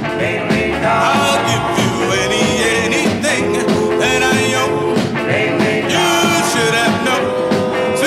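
Mid-1950s doo-wop record playing: a vocal group singing with a rhythm-and-blues band backing.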